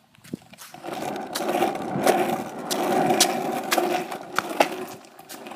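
Skateboard wheels rolling over pavement: a steady rolling noise that starts about half a second in and fades near the end, with several sharp clicks along the way.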